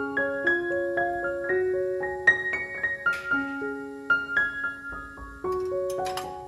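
Background piano music: a slow melody of single notes, each struck and then held.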